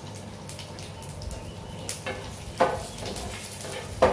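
Cashews and raisins frying in a little oil in a nonstick pan, a light sizzle with faint crackles. About two and a half seconds in, a wooden spatula starts stirring them, knocking on the pan twice.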